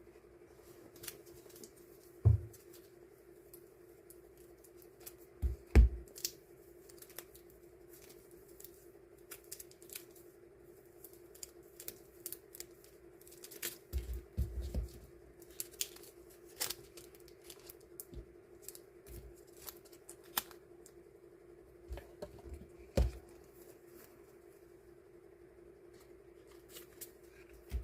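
Die-cut sticker sheets and packaging handled at a desk while being divided into portions: scattered sharp clicks, snips and rustles, with a few dull thumps, over a steady low hum.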